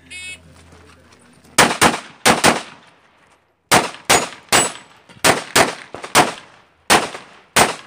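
A shot timer beeps briefly as the start signal, and about a second and a half later a pistol fires about a dozen rapid shots in quick pairs and triplets, each a sharp crack with a short echo.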